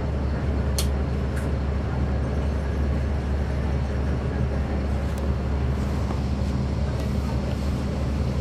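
Caterpillar C13 ACERT diesel engine of a NABI 40-SFW transit bus idling steadily, a constant low hum. A few short clicks sound over it.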